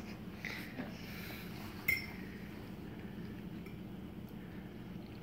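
Quiet room with a steady low hum and a few faint ticks, then one sharp clink of tableware about two seconds in.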